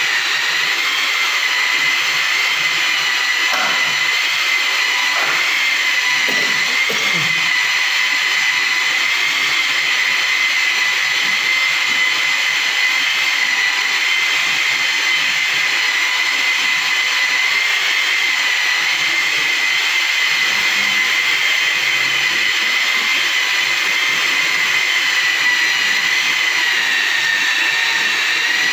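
Handheld electric rotary polisher running steadily with a high motor whine that wavers slightly in pitch, its buffing pad working over Athangudi cement floor tiles to polish them.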